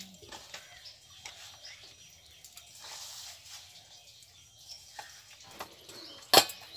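Hands kneading flour dough in a stainless steel bowl, giving faint squishing sounds, while birds chirp in the background. A single sharp knock about six seconds in is the loudest sound.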